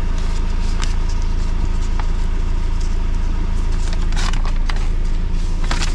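A vehicle engine running steadily with a low hum, with a few light clicks and rattles, most of them around four to six seconds in.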